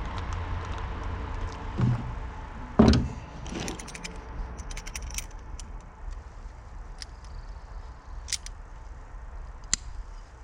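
Small metal parts and tools being handled: scattered light clinks and taps, with one loud knock about three seconds in, over a low road hum.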